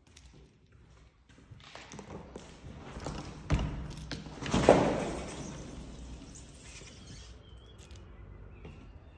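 Glass terrace door being opened: a sharp knock about three and a half seconds in, then a louder clunk a second later with a scraping rush that fades over the next few seconds.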